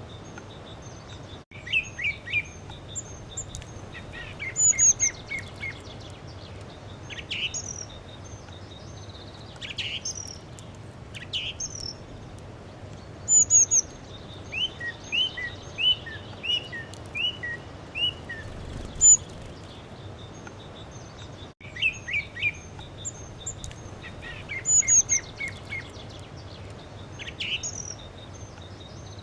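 Songbirds singing and chirping: short runs of quick, clear notes and high chirps, a phrase every second or two, over a steady faint background hiss. The sound drops out very briefly twice.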